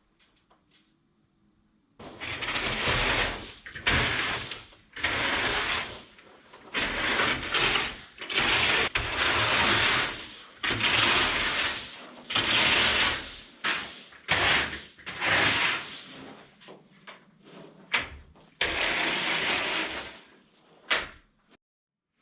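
A hand tool scraping and spreading sand and gravel over a floor being levelled, in repeated strokes about once a second. It starts about two seconds in.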